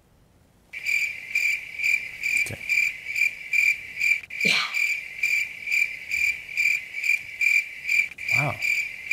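Crickets chirping, a steady high chirp pulsing about three times a second that starts about a second in. It is the stock cricket sound effect used to mark an awkward silence.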